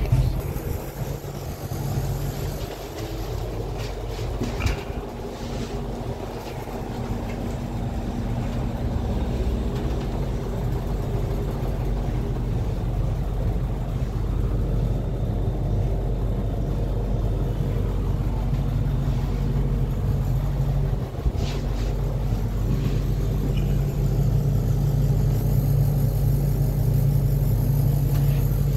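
Steady low mechanical hum inside an enclosed ferris wheel gondola as it rides slowly upward, with a few short knocks in the first seconds as a rider steps in.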